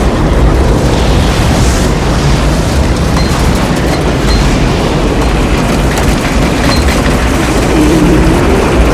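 Movie sound design of a tornado close by: loud, continuous wind noise over a deep rumble, with faint whistling glides through it.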